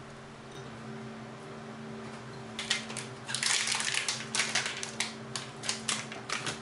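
Crinkly plastic food packet crackling and rustling as it is handled and torn open by hand, starting about two and a half seconds in. A steady low hum runs underneath.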